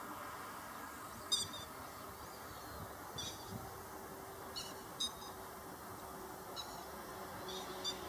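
Grey-headed lapwing giving short, sharp, high calls, about six of them spaced a second or two apart, over a faint steady background hiss.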